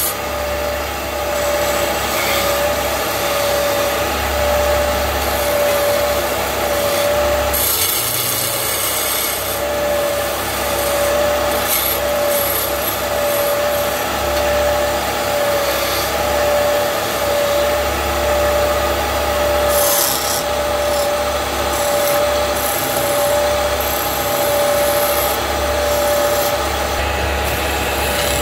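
A wood lathe running while a hand-held turning chisel cuts into a spinning wooden sofa leg. The tool scrapes steadily on the wood over a constant hum from the machine.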